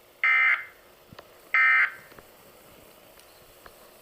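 Emergency alert broadcast signal: two short electronic bursts about 1.3 seconds apart, the last of a set of three, between the spoken announcements.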